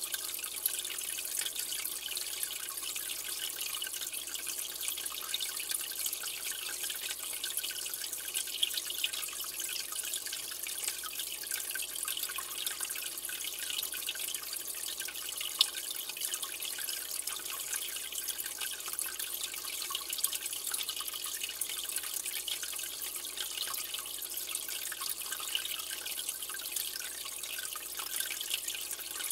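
Aquarium water trickling and splashing: a steady, hissy patter with small drips throughout.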